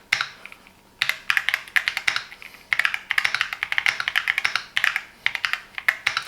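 Typing on a Keychron Q6 Max full-size metal mechanical keyboard with Gateron Jupiter Banana tactile switches: runs of quick key clacks in bursts with short pauses between them.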